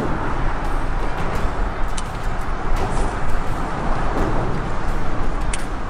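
Steady wind rumble on the microphone and choppy water around the boat, with two brief sharp clicks, one about two seconds in and one near the end.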